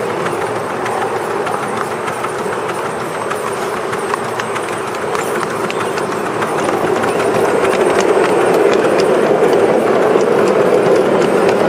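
A 7¼-inch gauge miniature Black 5 steam locomotive and its train running along the track: a steady rush of noise with fast, dense clicking from the wheels and running gear. It grows louder about two-thirds of the way through.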